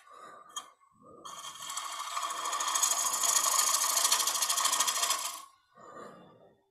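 A bowl gouge cutting the inside of a spinning green cedar bowl on a wood lathe. After a short pause the cut starts about a second in and runs as a loud, even shearing noise with a fast, regular pulse, then stops near the end.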